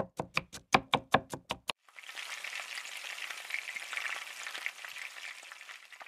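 About nine quick knife chops on a cutting board in under two seconds, then food sizzling in a hot frying pan, a steady hiss that fades out at the end.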